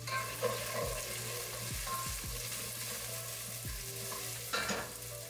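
Food sizzling as it fries in a pan on the stove, a steady hiss, with a steady low hum underneath.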